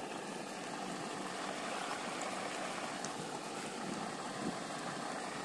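Steady low hiss of outdoor background noise, with no distinct events.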